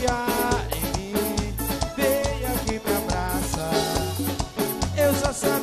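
Instrumental passage of lambadão, Brazilian dance music: a fast, steady drum beat over a pulsing bass, with a lead melody of gliding notes.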